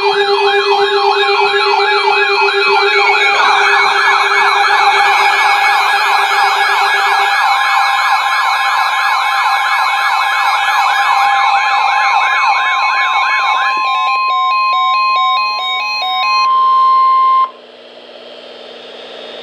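Several electronic siren wails layered together, each sweeping rapidly up and down, over a steady low tone for the first several seconds. A steady high tone joins about eight seconds in, and alternating two-pitch beeps come in later. Most of it cuts off suddenly near the end, leaving fainter beeping tones.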